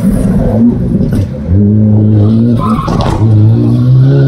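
Rally car's engine pulling hard as it accelerates away, climbing in pitch. It dips briefly about three seconds in, then climbs again.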